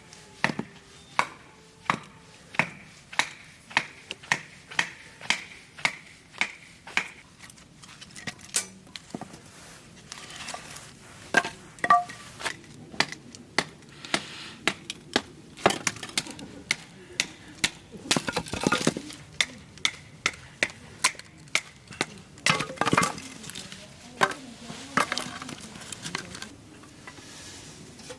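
Repeated sharp strikes with a hand tool, about one and a half a second and each followed by a short ring for the first several seconds, then more irregular knocks and a couple of crackling, breaking bursts.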